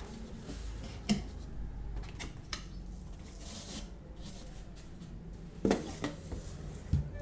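Packaging and contents being handled while a laser printer box is unpacked: a few sharp knocks and clacks with a stretch of soft rustling.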